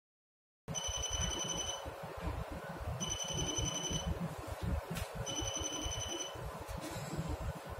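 Toy LED traffic light's electronic buzzer beeping three times, each beep about a second long and roughly two seconds apart: the 'dida' signal sound the light gives when it switches. A steady low rumble runs underneath, with a single sharp click about five seconds in.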